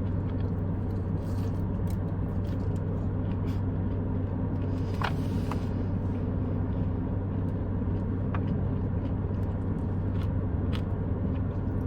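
Steady low rumble and hum of a car idling, heard inside the cabin, with faint occasional clicks of chewing.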